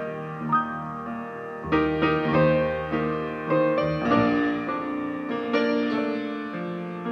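Grand piano and double bass playing an instrumental duet: piano chords and melody notes struck every second or so over a low bass line.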